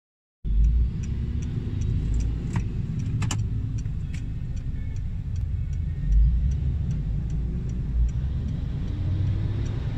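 Car cabin sound in traffic: a steady low rumble from the engine and road. Over it runs an even ticking about two to three times a second, with a couple of sharper clicks about three seconds in.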